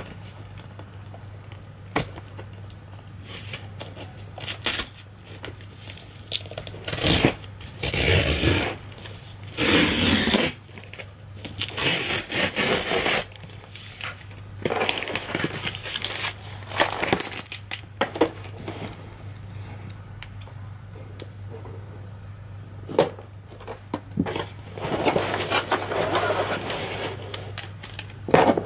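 A cardboard parcel being opened by hand: tape and cardboard tearing and packaging rustling in irregular bursts, loudest around eight to thirteen seconds in and again near the end, with scattered knocks. A low steady hum lies underneath.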